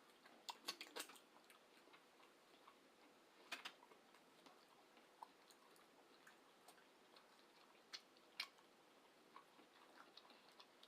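Near silence with faint, scattered clicks of eating: quiet chewing and mouth sounds, a few at a time with long gaps between.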